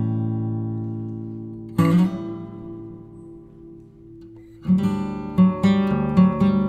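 Background music on acoustic guitar: a chord rings out and fades, another is struck about two seconds in, then a quicker run of picked notes starts near the end.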